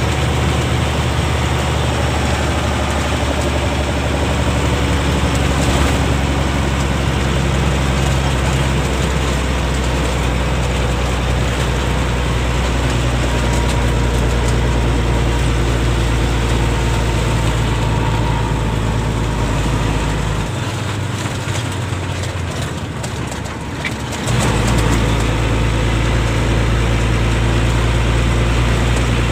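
Truck's diesel engine running steadily under way, heard from inside the cab with road and cab noise. About twenty seconds in, the engine drone eases off for a few seconds, then comes back abruptly.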